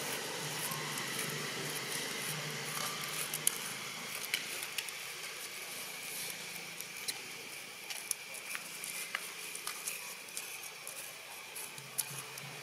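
Ambient background: a steady faint hiss and low hum, with scattered small clicks and rustles.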